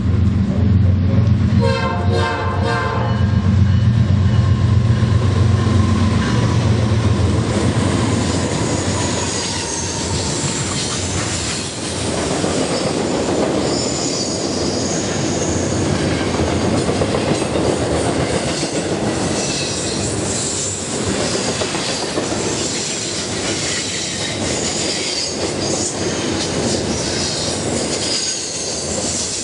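A train passing close by: diesel locomotive engines drone at first, with a short horn sounding about two seconds in. Then the cars roll past with a steady rumble, rhythmic clickety-clack over the rail joints and high wheel squeal.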